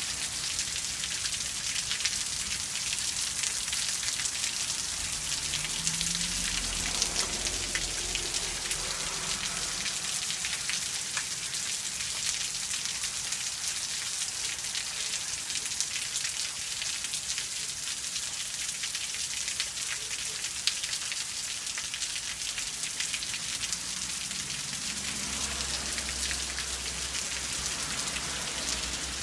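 Steady rain falling, an even hiss dense with the ticks of individual drops striking surfaces.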